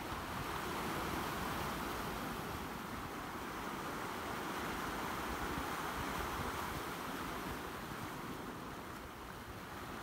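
Sea surf washing and breaking over the rocks of a rocky shore, a steady rushing wash that swells through the first several seconds and eases off near the end.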